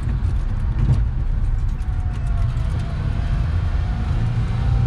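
1994 Suzuki Carry kei truck's engine running steadily with low road rumble, heard from inside its small cab as it rolls slowly.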